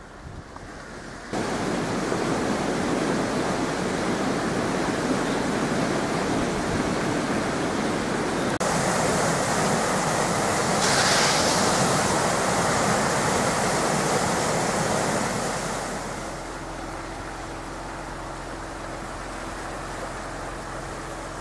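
A creek in flood after heavy rain, brown water rushing and churning; the rush sets in abruptly about a second in and drops to a quieter, steadier flow near the end, where a faint steady hum also comes in.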